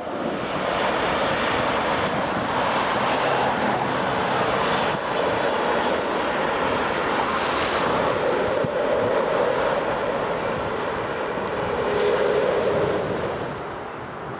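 Airbus A380's four Rolls-Royce Trent 900 jet engines at takeoff thrust: a loud, steady rush of jet noise as the airliner rolls and lifts off, with some wind on the microphone. The noise drops to a quieter rumble about a second before the end.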